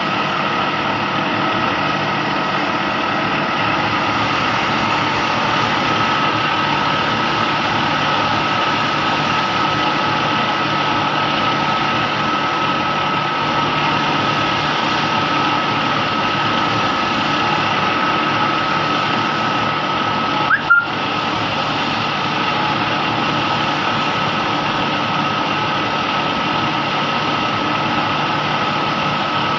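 Diamond wire saw running steadily through reinforced concrete: an even machine noise with a constant high whine, broken once by a short blip about twenty seconds in.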